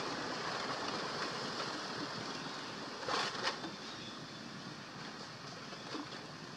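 Steady outdoor background hiss, with two short scratchy bursts just after three seconds in and a fainter one near the end.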